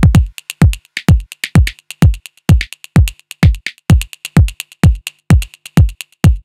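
Electronic dance music with a steady drum-machine beat: a deep kick drum a little over twice a second, with sharp hi-hat ticks between.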